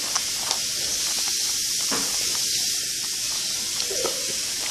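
Steady high hiss from the recording microphone's own noise, with a few faint clicks and rubs from the plastic puzzle cube being handled and turned.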